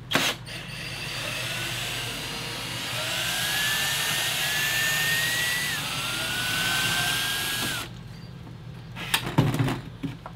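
Cordless drill running in several long runs as screws are backed out, its motor whine rising in pitch during each run, and stopping nearly eight seconds in. A few knocks follow as the fireplace insert is worked loose.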